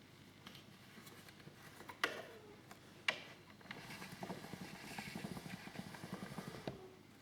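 Two sharp clicks about a second apart, each with a short ringing tail, then a quick, irregular rattling clatter for about three seconds.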